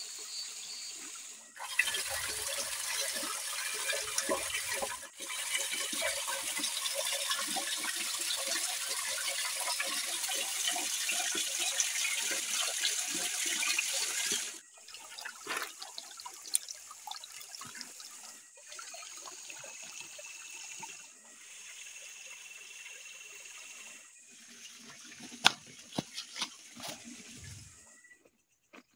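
Creek water rushing over rocks, loud and steady, starting and stopping abruptly about two seconds in and about halfway through. After it, the flow is much quieter, with scattered clicks and knocks.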